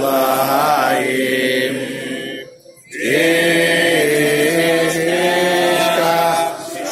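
A group of men singing a slow song together, with long held notes; there is a brief breath break about two and a half seconds in, then one long sustained note.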